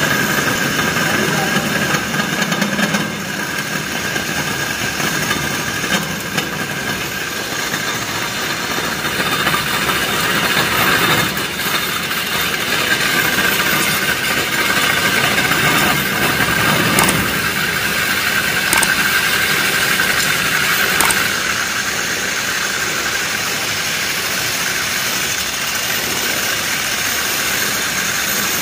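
Electric handheld diamond core drill running steadily as its core bit cuts a hole into a concrete floor, cooled with water: a steady, high motor whine over continuous grinding.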